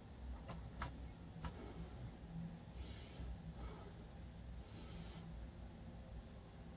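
Faint handling sounds: three light clicks in the first second and a half, then four short soft hissing rustles, over a low steady hum.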